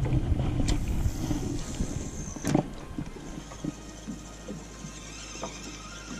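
Wind rumbling on the microphone for about the first three seconds, with a sharp click about two and a half seconds in as the spinning rod is cast. After that come light, irregular taps and lapping around the boat while the reel is cranked.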